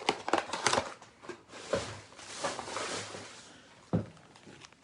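Foil trading-card packs and an emptied cardboard blaster box being handled, with light rustling and scattered taps and a sharper knock about four seconds in.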